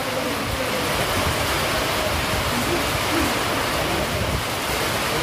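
Storm wind gusting through trees, a steady rushing with a rumbling buffet on the microphone. A faint voice can be heard in the background.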